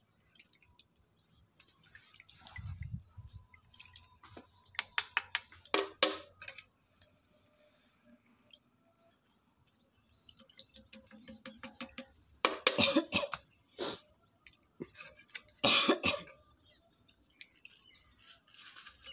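Steel ladle clinking and scraping against a steel pot of milk cooking down into rabri, in several short bursts of quick metallic taps.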